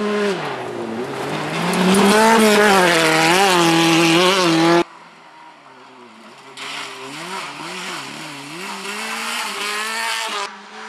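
Rally sand-rail buggy engines revving hard, the pitch climbing and dropping with throttle and gear changes. About five seconds in the sound cuts abruptly to a fainter buggy engine, which grows louder again.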